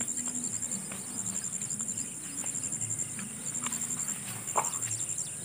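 Crickets chirping steadily in a rapid, high, pulsing trill. A single brief knock about four and a half seconds in.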